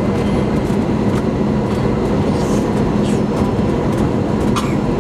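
Steady cabin noise of an Airbus A321-211 with CFM56 engines on descent: engine drone and airflow rushing over the fuselage, with a steady low hum.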